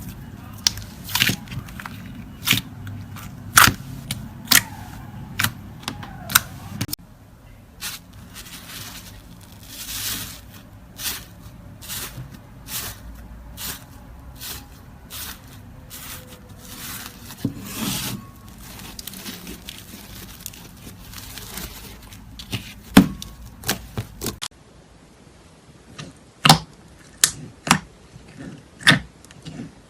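Slime being squeezed, poked and stretched by hand, making irregular sharp clicks and pops. The background hiss changes abruptly twice, about seven seconds in and again near the end.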